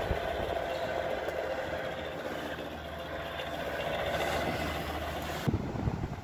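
Amana PTAC air conditioner running: a steady hum with a strong airy hiss. About five and a half seconds in, it cuts to the rebuilt unit running, where the hiss is much fainter, with a few low thumps.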